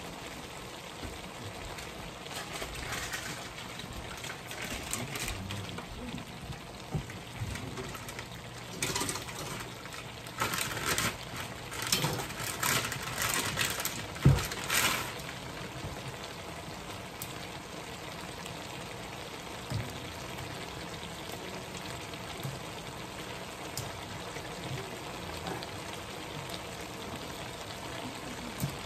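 Diced pork innards sizzling and crackling in a frying pan with soy sauce, the crackling busier for a few seconds in the middle. A single sharp knock about 14 seconds in.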